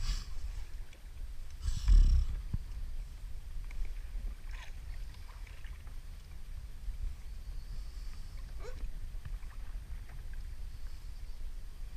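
Wind buffeting the microphone on a kayak in choppy water, with short splashes of water against the hull; the loudest comes about two seconds in.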